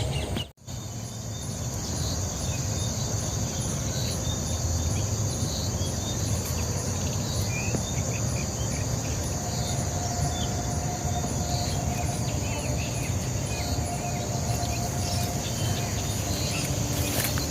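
Steady high-pitched insect chorus over a low background rumble, with a brief dropout about half a second in.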